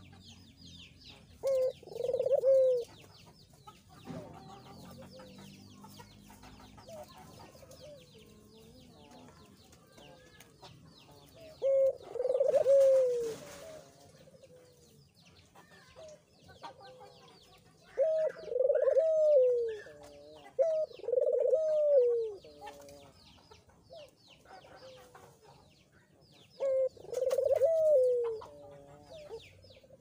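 Barbary dove (puter) cooing five times, each phrase a short note followed by a longer, falling rolling coo. Small birds chirp faintly throughout.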